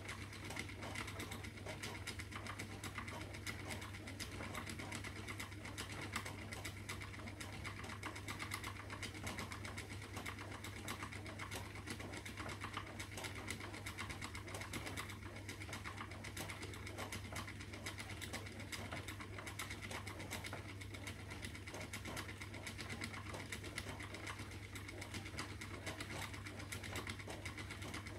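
Spinning wheel running steadily while plying yarn: a continuous mechanical whir made of fast, fine clicking, over a low steady hum.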